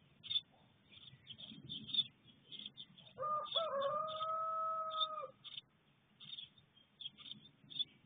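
A rooster crowing once: two short notes, then a long held note of about two seconds. Short, high bird chirps repeat throughout.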